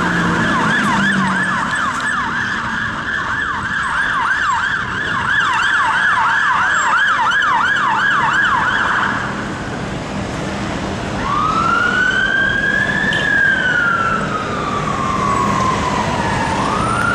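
Emergency vehicle sirens over street traffic. For about the first nine seconds there is a fast yelp of about three sweeps a second. After a short break, a slow wail climbs, falls away over several seconds and starts to climb again near the end.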